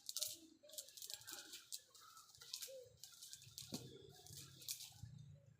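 Faint, irregular patter of splashing water, coming and going in short spells, with soft murmuring voices underneath.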